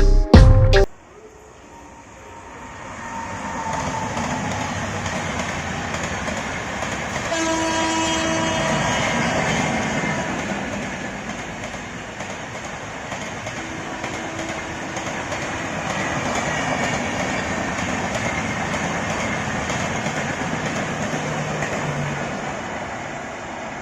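Express train running, heard from aboard an LHB coach: a steady rumble and rattle that swells up about three seconds in. The locomotive's horn sounds for about a second around seven seconds in, and a fainter horn note comes again near the middle.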